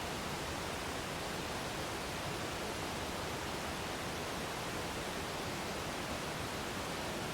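Waterfall: water falling and splashing in a steady, unchanging rush.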